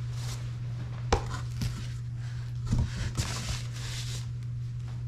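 Clothing being handled: fabric rustling as a dress is moved about, with a sharp click about a second in and a few soft knocks around three seconds, over a steady low hum.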